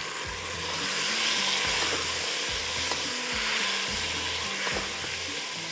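Onions, whole spices and thick-cut tomato pieces sizzling in a non-stick pot, stirred with a wooden spoon that scrapes now and then against the pan.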